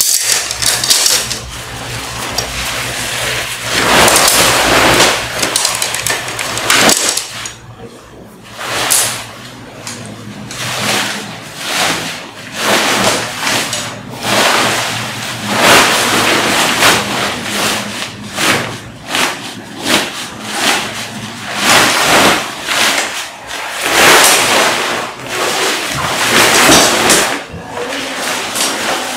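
Children's play-tent fabric rustling and crinkling in repeated, irregular swells as it is bunched, shaken and handled while the frame poles are fed into its sleeves.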